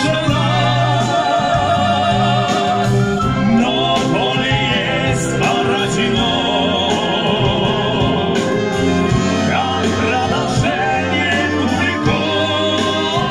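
Live brass band playing, accompanying male singers who sing with a strong vibrato through a PA system.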